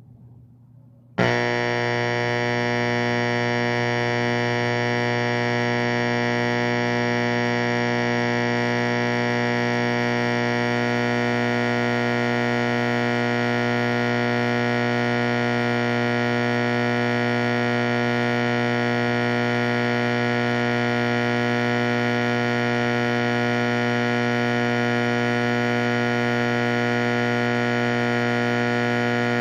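Simplex 4050 120 VAC electromechanical fire alarm horn switched on about a second in, then sounding continuously as one steady, unbroken honk that does not pulse or change in pitch.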